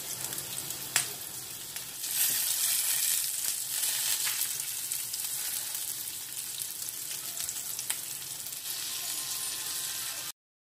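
Flour-dusted cutlassfish pieces sizzling as they pan-fry in oil in a nonstick frying pan, a little louder from about two seconds in. Two sharp clicks stand out, one about a second in and one near eight seconds, and the sizzle cuts off suddenly near the end.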